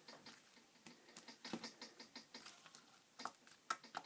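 Homemade white-glue slime being squeezed and stretched in the hands, giving faint, irregular little clicks and crackles.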